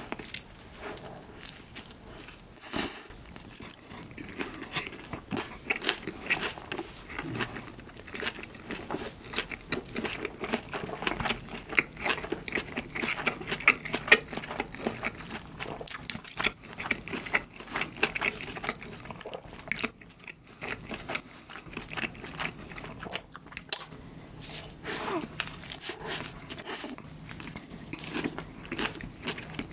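A person biting into a soft sausage bread roll topped with corn salad at the start, then chewing it: an irregular stream of small mouth clicks and smacks.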